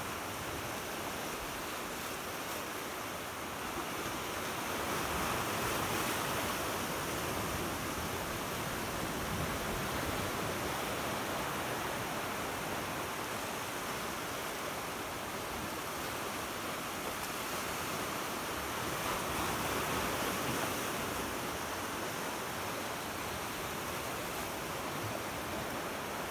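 Sea waves washing, a steady rush that swells louder twice.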